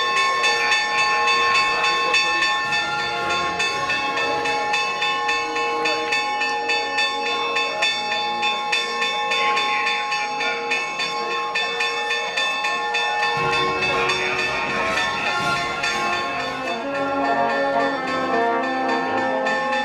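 Church bells pealing continuously in rapid, dense strokes, a clangour of several steady ringing tones. About two-thirds of the way through, a brass band's low notes start up underneath.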